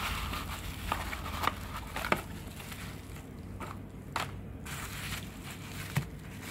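Bubble wrap crinkling and crackling as a bubble-wrapped packet is pulled out of a small cardboard box, with scattered light clicks and taps. The crinkling is busiest in the first couple of seconds and thins to a few taps as the packet is set down.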